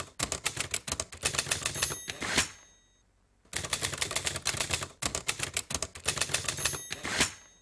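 Typewriter keys clacking fast in two runs with a short pause between them, each run ending with the ring of the bell.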